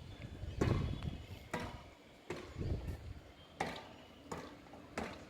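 A series of about six sharp knocks at uneven spacing, roughly one a second, each with a short ring: hand-tool work on the roof joint.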